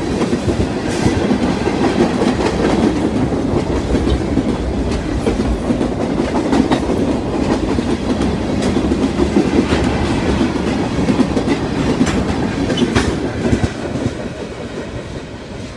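Norfolk Southern intermodal freight train's cars rolling past, a steady rumble with wheels clicking over the rail joints. The sound drops off near the end.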